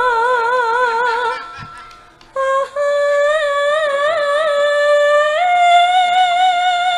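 A female sinden sings solo into a microphone in Javanese style, holding long notes with a wide, even vibrato and no instruments heard. The first note fades out about a second and a half in. After a short break she starts a new phrase that steps up to a higher held note about five seconds in.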